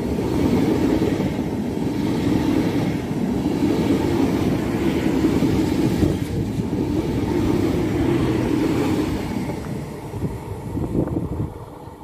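Frecciarossa 1000 high-speed electric train passing close by, a steady loud rumble of wheels on rail with a rush of air. The sound fades over the last two seconds as the train moves away.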